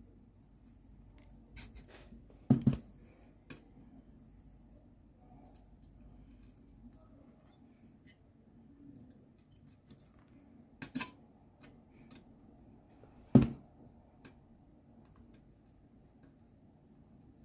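A few sharp little metal clicks and taps of tools on the pins as a 96-pin connector's pins are pulled from a circuit board one at a time. The loudest clicks come about two and a half seconds in, around eleven seconds and around thirteen seconds.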